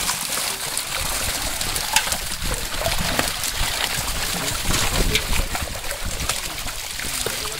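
Dense mass of netted fish thrashing in shallow pond water, with hands scooping them out: a steady spatter of many small splashes.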